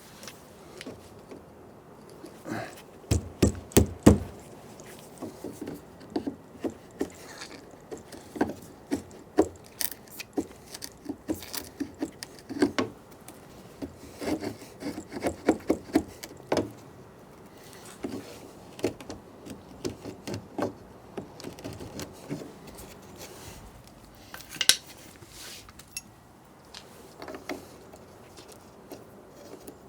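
Hand tools and lock hardware being worked at a door's strike opening: a run of irregular taps, clicks and scrapes, some in quick clusters, with a few heavier thumps about three to four seconds in.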